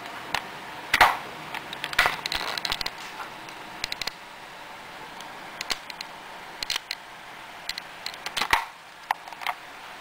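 Hard plastic action figure being handled: scattered irregular clicks and knocks, the loudest about a second in, over a steady hiss.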